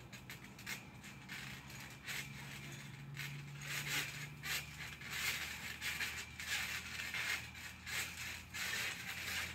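Trampoline springs creaking in repeated strokes, about two a second, as people bounce and wrestle on the mat.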